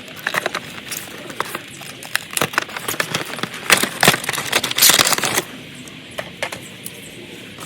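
Packaging being handled during an unboxing: scattered clicks, taps and crinkles, with a louder rustle lasting about a second around five seconds in.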